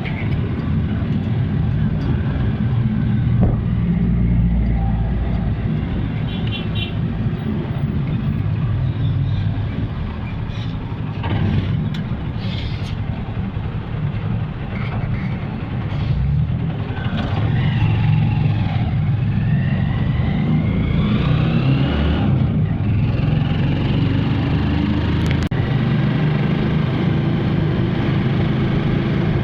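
Street traffic: vehicle engines running steadily, with a rising engine whine about twenty seconds in.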